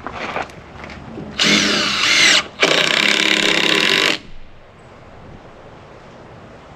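Cordless drill driving screws into the wooden boards of a tractor counterweight box: two runs of the motor, about a second and then a second and a half, the first with a rising whine as it spins up.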